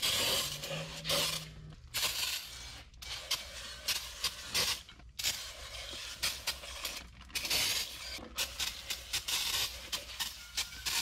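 Scotch-Brite pad scrubbed back and forth by hand on a metal transmission part, a run of irregular scratchy rubbing strokes, smoothing out light scratches on its surface.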